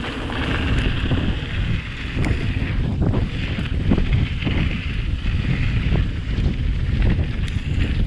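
Wind buffeting the microphone of a mountain bike descending a dirt singletrack, over a steady rumble of tyres on the trail, with scattered knocks and rattles from the bike over bumps.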